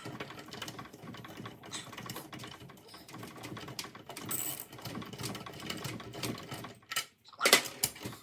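Rapid, uneven mechanical clicking, with a few louder knocks near the end.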